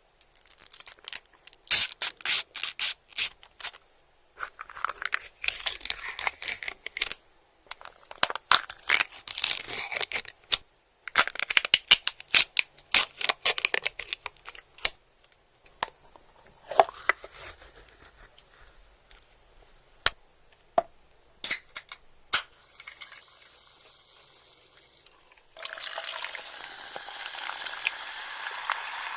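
Close-miked crinkling and tearing, in dense runs for about the first fifteen seconds and then scattered. About twenty-five seconds in, a steady bubbling hiss of water coming to the boil starts.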